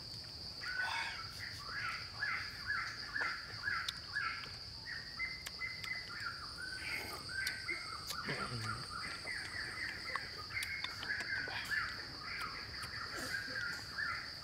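Birds calling outdoors in short notes, repeated several times a second, over a steady high-pitched buzz, with a few faint clicks.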